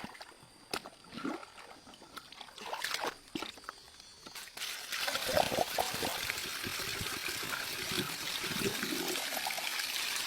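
Water trickling and splashing, with a steady rush of water starting about halfway through; before it, scattered small knocks and rustles.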